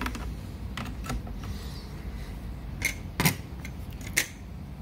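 About five sharp clicks and knocks from handling the laptop and its parts, spaced unevenly, the loudest a little past the middle.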